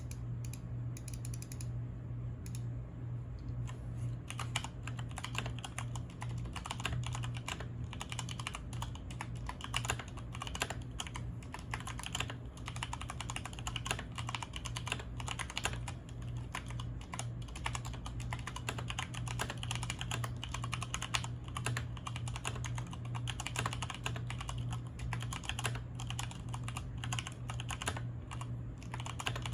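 Mechanical keyboard being typed on continuously, a fast stream of key clicks that starts sparse and grows dense a few seconds in; stock stabilisers, switches not lubed. A steady low hum runs underneath.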